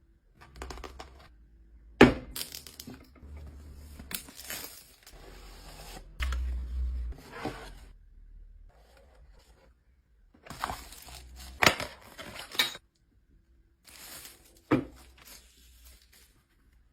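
Handling sounds: stretches of rustling and crinkling, broken by sharp clicks and knocks. The loudest click comes about two seconds in, and more come near the end.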